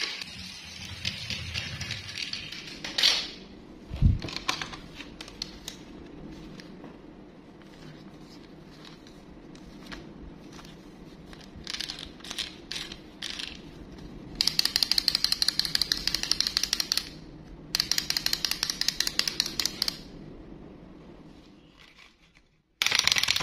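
A small plastic walking toy's wind-up mechanism running in a fast, even clatter of ticks, in two runs of a few seconds past the middle and again near the end as the toy walks on a hard tabletop. Earlier come a few knocks and rustles of plastic toys being handled in a cardboard box.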